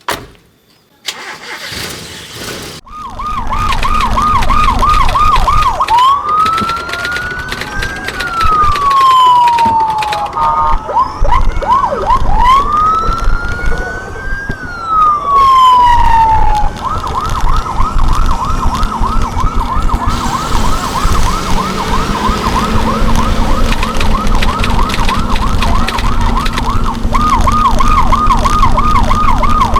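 Electronic siren fitted to a car, switched through its tones. A fast warbling yelp starts about three seconds in, then comes two long wails that rise and slowly fall, then a fast yelp for the rest. The car's engine runs underneath.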